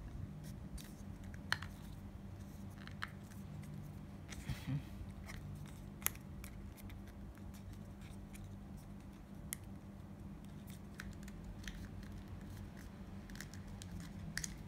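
Paper and cardboard packaging being handled as the Apple Watch charging cable is unwrapped: scattered small clicks and short rustles, with a brief crinkle about four and a half seconds in. A steady low hum runs underneath.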